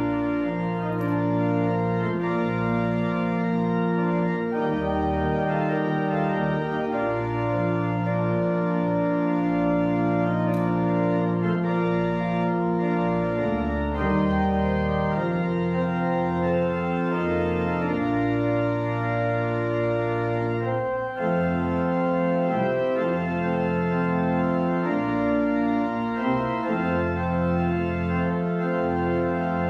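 Organ playing slow, sustained chords that change every second or two, with a momentary break about two-thirds of the way through.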